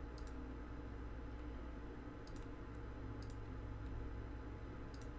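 Four faint clicks of computer input, each a quick press-and-release double click, at uneven spacing over a steady low room hum.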